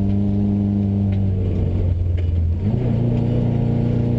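Interior sound of a Subaru rally car's flat-four engine running under load on a snowy gravel stage, with road noise underneath. The steady engine note breaks briefly about a second and a half in, then picks up again slightly higher in pitch.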